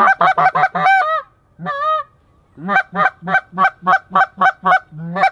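Goose honks, loud and close: a quick run of about five calls, a single honk, then a steady series of about nine calls, roughly three a second.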